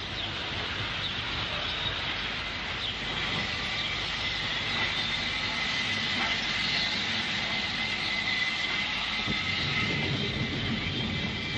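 A steam-hauled train of two ex-LNWR 0-8-0 goods locomotives running along the line, a steady rumbling rail noise that grows louder at the start, with a thin steady high tone above it.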